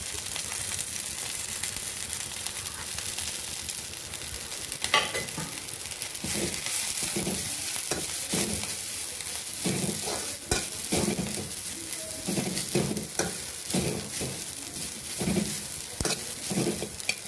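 Ponnanganni (dwarf copperleaf) greens sizzling in a hot kadai with a steady hiss. From about five seconds in a spatula stirs and tosses them, giving repeated scrapes and knocks against the pan.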